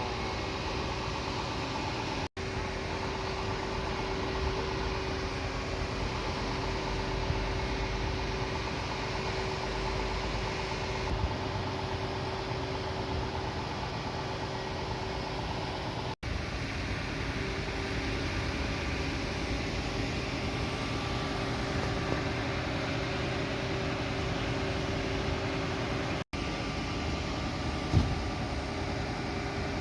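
Fire truck engine idling steadily with a constant hum. A single short knock about 28 seconds in.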